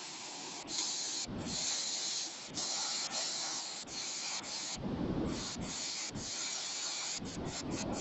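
Waterfall rushing as a steady, even hiss, with a few low rumbles of wind or handling on the microphone, the longest about five seconds in.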